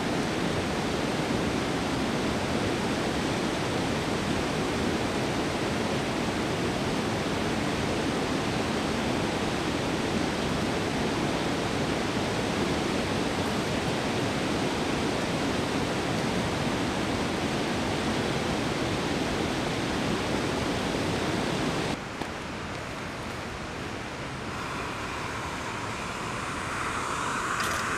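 Steady rushing of river rapids. About three-quarters of the way through it cuts to a quieter background, and a faint steady hiss comes in near the end.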